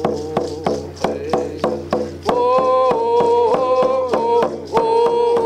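A man singing a traditional song in vocables, with long held notes, while beating a steady, even rhythm on an octagonal hand drum with a beater.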